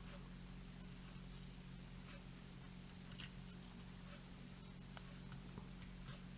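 Faint small clicks and ticks of soldering work on header pins, the sharpest about three seconds in, over a steady low electrical hum.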